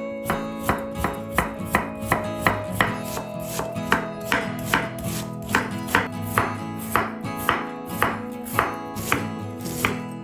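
Knife chopping vegetables on a cutting board in a steady rhythm of about three strokes a second, over background guitar music.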